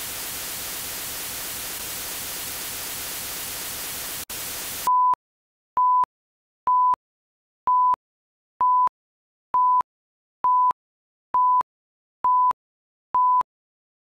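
Steady hiss of video static for about five seconds, broken by a brief dropout just before it stops. Then ten short identical beeps at one high pitch, about one a second.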